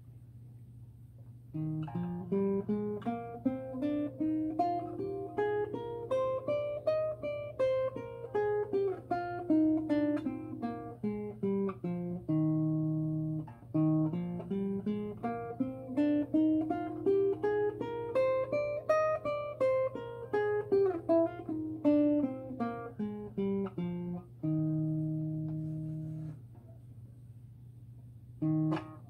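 Nylon-string classical guitar played one note at a time: a scale plucked steadily up and back down, ending on a held low note, then played through a second time. After a short pause a few more notes start near the end.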